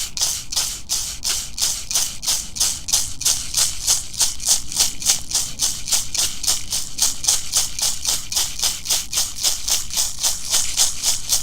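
A shaman's rattle shaken in a steady, even rhythm, about four shakes a second, accompanying a shamanic journey meditation.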